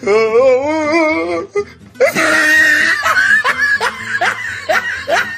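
A voice holds one long wavering cry for about a second and a half, its pitch shaking several times a second, then laughter, repeated short falling 'ha's, over music and a rushing hiss from about two seconds in.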